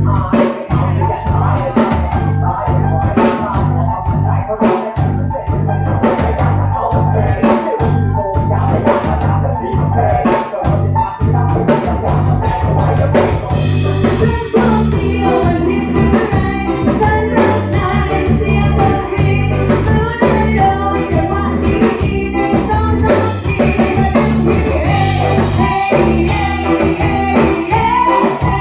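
Band music with a steady beat on drum kit, a repeating bass line and guitar, with singing over it.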